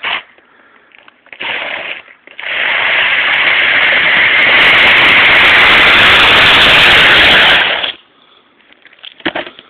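Plastic lid used as a sled, scraping down an icy, sleet-covered concrete driveway under a child: a short scrape, then a loud, steady, gritty hiss for about five seconds that stops abruptly.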